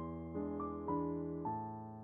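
Background piano music: a slow melody of notes struck every half second or so, each fading away.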